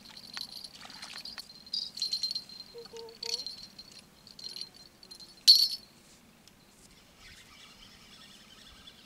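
Metallic jingling from fishing tackle in quick, irregular bursts as a fish bites, with one sharp knock about five and a half seconds in. The jingling stops soon after, leaving faint bird chirps.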